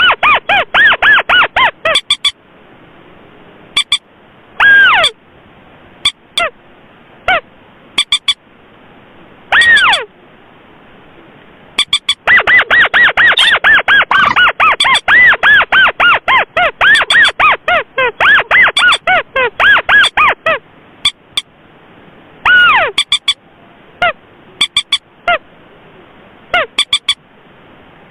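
Recorded lure calls of common moorhen and paddy-field crake. Loud runs of rapid, short, downward-curving notes alternate with single longer calls that slide down in pitch, mixed with sharp clicks.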